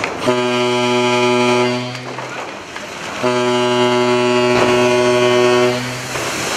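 Ship's horn sounding two long, deep, steady blasts during a side launch of a tanker, the second blast ending as the hull hits the water, with the rush of the launch splash beneath.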